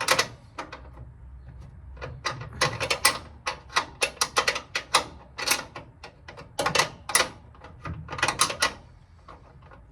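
Ratchet wrench clicking in short, irregular strokes, tightening a bolt in a cramped space.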